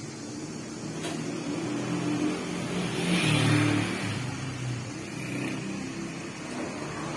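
A small electric motor running with a steady hum that swells louder about three seconds in, then settles.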